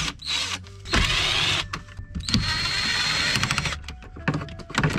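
Cordless drill-driver with a 7 mm socket spinning out the screws that hold the e-brake and hood release handles, in two short runs: one about a second in, a longer one from about two seconds. A few light clicks near the end.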